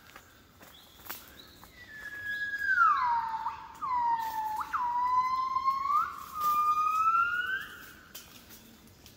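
Southern yellow-cheeked gibbon singing. One clear whistled note slides down, then several held notes each end in a rising sweep, about six seconds in all.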